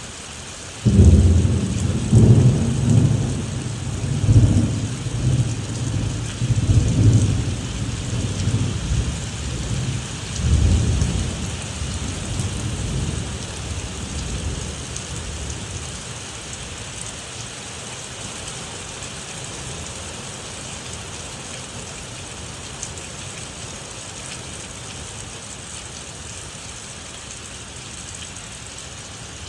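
A thunderclap breaks about a second in and rolls on in several deep rumbling swells for about ten seconds, dying away into steady rain falling.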